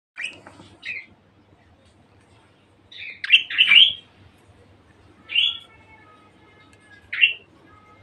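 Budgerigars chirping in short, sharp calls: a couple near the start, a loud run of chirps around the middle, then a call that trails into a held whistling note, and one more chirp near the end.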